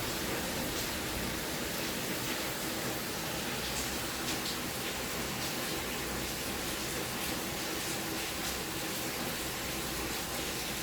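Steady background hiss with a faint low hum, and a few faint light ticks.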